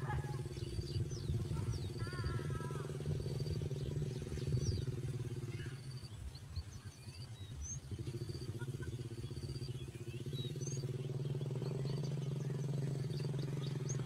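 A steady low hum, like a motor running, fades for a couple of seconds in the middle. Over it come scattered short high-pitched bird chirps and a brief chattering call about two seconds in.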